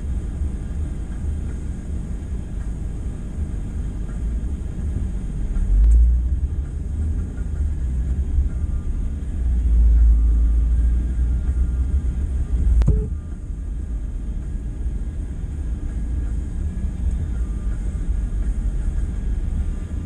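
Car driving, heard from inside the cabin: a steady low rumble of engine and road noise that swells twice, around six seconds in and again for a couple of seconds before a single sharp click about thirteen seconds in.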